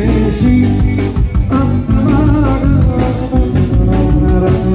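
Live Greek folk dance music: plucked strings and a bass line carrying the tune, joined by a wavering melody line about one and a half seconds in.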